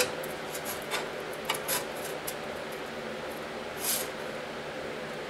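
Light metal clicks and taps as a steel angle guide rail is shifted by hand on a sheet-steel base plate, with a brief scrape about four seconds in, over a steady background hum.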